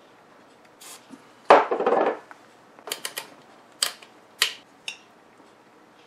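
Small hard parts handled while knobs are fitted to a Heathkit MM-1 meter's controls. A loud clatter about a second and a half in, then several sharp separate clicks.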